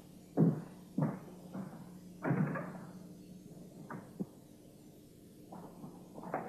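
Boot footsteps on a wooden floor, a few dull thuds about half a second apart, with a louder door bang about two seconds in and a couple of lighter knocks after it.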